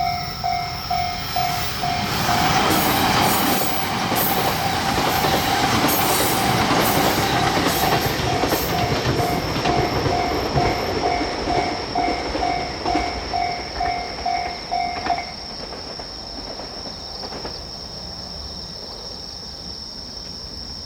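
Japanese railway level-crossing alarm ringing its repeated "kan-kan" about twice a second while a suburban electric train passes, its wheels clattering over the rail joints. The alarm stops about 15 seconds in as the train clears.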